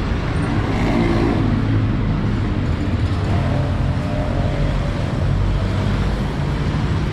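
Steady low rumble of road traffic and running vehicle engines.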